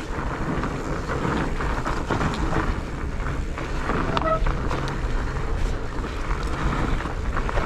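Wind rushing over the action camera's microphone as a mountain bike rolls over a rough forest trail, with repeated knocks and rattles from the bike. A brief high squeak about four seconds in.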